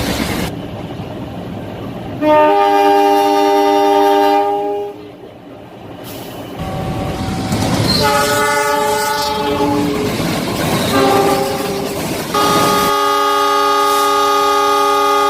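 A train's multi-tone horn sounding several long blasts, each a steady chord of notes, over the rumble and clatter of a moving train. The longest blast begins about two-thirds of the way in and holds to the end.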